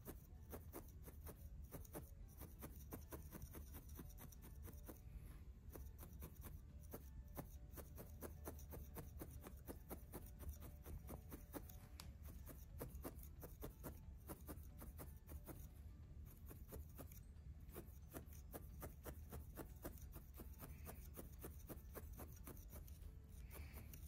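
Felting needle stabbing again and again into a wool nest on a wool felting mat: a steady run of faint, soft pokes, several a second, over a low room hum.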